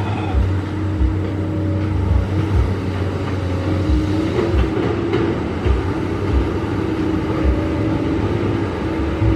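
Hydraulic excavator's diesel engine running steadily at work, with low thumps every half second to a second.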